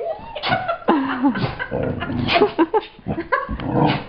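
Dog grumbling and whining in a run of uneven moans that rise and fall in pitch, mixed with short bumps from play and handling.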